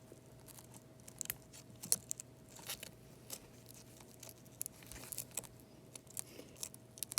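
Faint, irregular clicks and light scraping of a spudger working through the cracked screen glass of an iPad Mini 5 to lift its LCD cables, over a faint steady hum.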